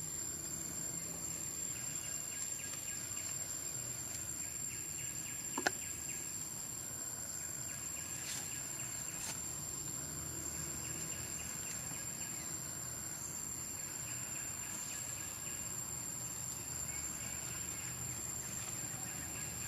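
Forest insect chorus: a steady high-pitched drone with faint rapid chirping. A single sharp click sounds about five and a half seconds in.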